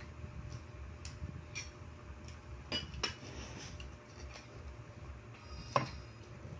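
Tableware sounds at a meal: a few scattered light clicks and clinks of dishes and cutlery. The loudest is a single ringing clink near the end.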